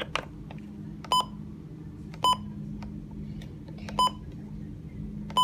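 Four short electronic beeps at uneven intervals, over a steady low hum.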